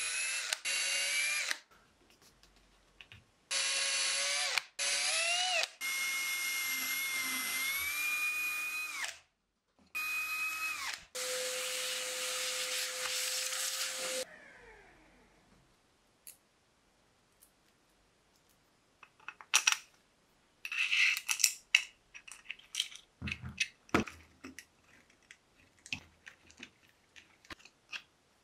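Cordless drill boring holes through plywood with a twist bit in three runs, its motor whine dipping and rising with trigger and load. A vacuum nozzle then runs with a steady rush and winds down, followed by light clicks and knocks of small parts being handled.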